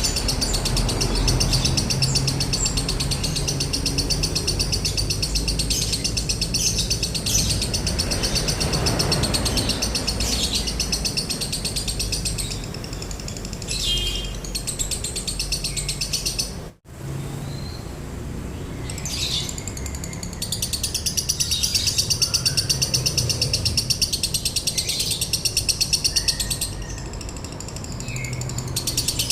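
Lovebird giving a long, very fast rattling trill, the buzzy 'konslet' chatter, in high rapid-fire notes. It breaks off briefly twice, once with a sudden cut partway through.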